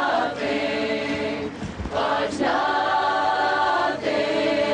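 A choir singing a slow song in long held notes, with short breaks between phrases.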